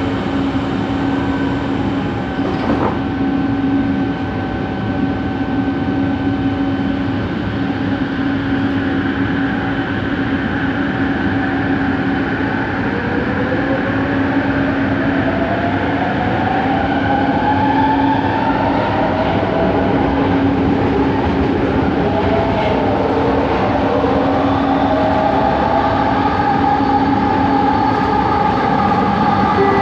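Inside a Bombardier Innovia ART 200 metro car: a steady hum from the stationary train, with a short knock about two and a half seconds in as the doors close. From about twelve seconds in, the linear-induction propulsion whine rises in pitch as the train pulls out of the station and gathers speed.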